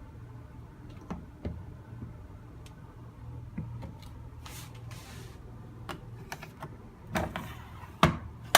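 Clicks and knocks of a washing machine being worked by hand, its controls and door or lid handled, over a steady low hum. There is a short hiss midway and two louder sharp knocks near the end.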